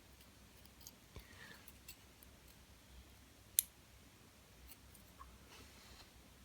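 Small metal lock parts being handled on a bench: faint scattered clicks and taps, with one sharper click about three and a half seconds in and a louder click at the very end.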